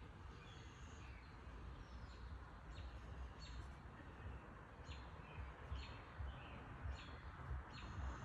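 Songbird chirping in short, sharp high notes, about one every second, over a faint low outdoor rumble.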